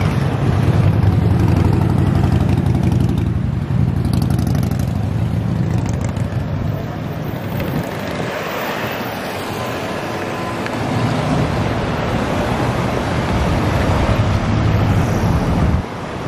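Road traffic passing close by: cars, vans and motor scooters driving along the bridge roadway, a steady low rumble that swells as vehicles go past and drops away sharply near the end.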